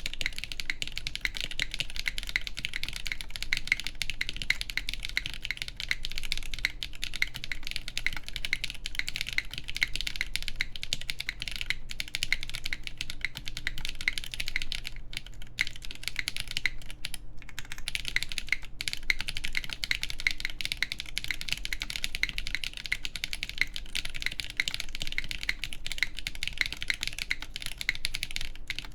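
Fast, continuous typing on a Neson 700E mechanical keyboard with Krytox-lubed KTT Yexia switches, an aluminum plate and GMK keycaps. The typing breaks off briefly a couple of times about halfway through.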